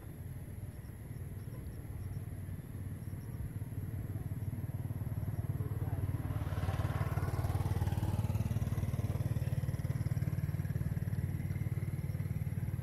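A motor vehicle's engine rumbles low and grows steadily louder over several seconds, then holds. About seven seconds in there is a brief, louder rush of higher sound as it passes close.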